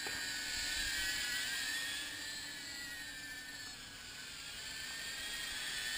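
Small 2S CineWhoop drone's 1404 brushless motors and 63 mm props whirring in flight, a steady high whine that wavers slightly in pitch. It grows fainter toward the middle and builds again near the end.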